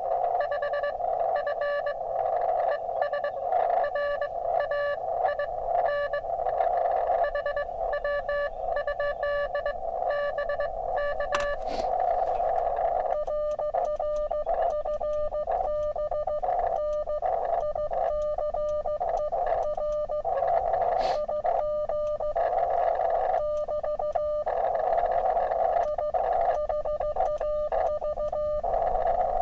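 Morse code (CW) from a portable HF ham radio transceiver: a single-pitch tone keyed in quick dots and dashes over steady receiver hiss, as a two-way contact is exchanged. There is a sharp click twice.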